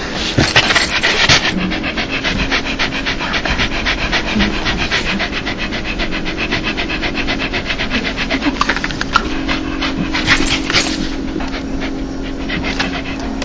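A dog panting rapidly with open mouth, a fast run of short breathy huffs. This is the breathy 'dog laugh' of a happy, excited dog.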